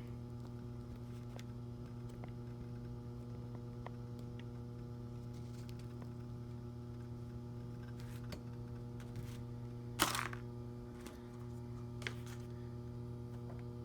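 Steady electrical mains hum with a few faint clicks, and one brief rustling burst about ten seconds in.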